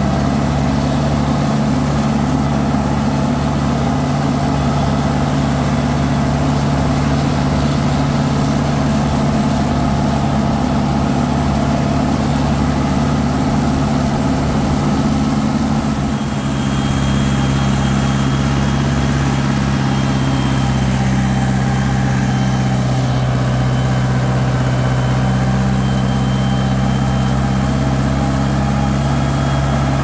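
An old farm tractor's diesel engine running at a steady speed as the tractor is driven, heard from the driver's seat. About halfway through, the loudness dips briefly and the engine note settles slightly lower.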